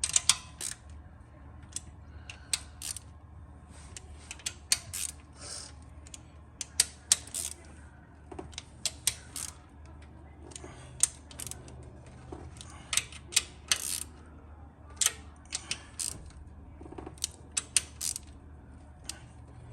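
Hand socket ratchet clicking in short quick runs, with pauses between, as the nuts on the engine's top end get their final tightening.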